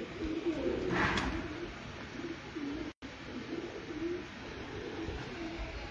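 Domestic pigeons cooing over and over, with a brief rustle about a second in.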